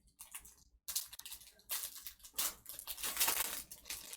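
Trading cards being handled during a pack break: an irregular run of papery rustles, slides and flicks, loudest around three seconds in.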